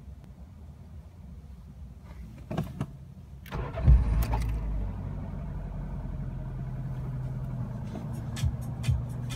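Ford Fiesta Mk5 engine being started with the key. A couple of clicks come first, then about three and a half seconds in the engine cranks and catches, flares up loudly and settles to a steady idle, with a few light clicks near the end.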